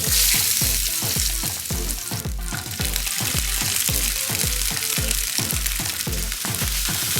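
Food sizzling as it fries in hot oil, a steady hiss that starts abruptly at the outset. A backing electronic dance track with a steady kick-drum beat, about two beats a second, plays under it.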